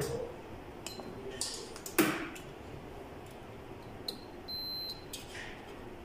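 A few metal clinks and a knock as a microwave magnetron and test leads are handled, then a multimeter's continuity beep for about a second, four seconds in, as the probes touch the magnetron's terminals: the magnetron shows continuity.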